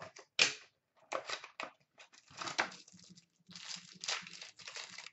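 Hands tearing open and crinkling the wrapping of an Upper Deck SP Game Used hockey card pack, in a run of irregular crackles and short rips.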